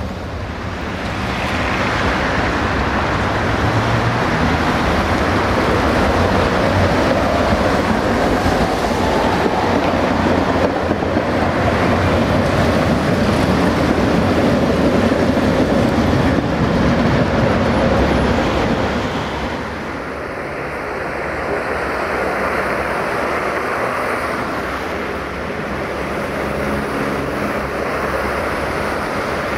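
Tatra T4D tram passing close on its rails, with a rumble and a whine that rises in pitch as it gathers speed. About twenty seconds in it gives way to quieter, steadier tram and street noise.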